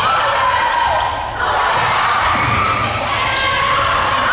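Indoor volleyball rally: the ball being struck, sneakers squeaking briefly on the gym floor, and players calling out, all echoing in a large gymnasium.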